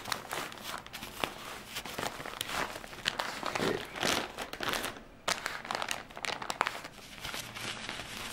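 Thin plastic diaper pack and disposable diaper crinkling and rustling as a diaper is pulled out of the opened pack and handled: a run of irregular crackles with a brief pause about five seconds in.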